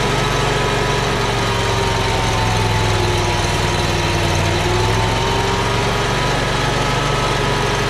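Kawasaki FH661V 22 hp V-twin engine of a John Deere Z810A zero-turn mower running steadily, its speed wavering slightly up and down. It is running poorly because the choke and throttle cables are hooked up on opposites.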